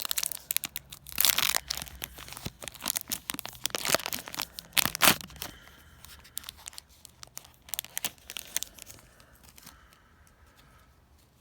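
A foil booster-card pack being torn open and its wrapper crinkled: a run of sharp crackles, loudest about a second in and again at about five seconds. After that the handling turns fainter and sparser as the cards are slid out.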